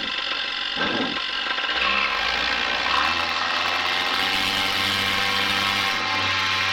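Paramotor engine running behind the pilot. Its pitch rises about two seconds in as the throttle opens, then holds steady at high power during the takeoff run.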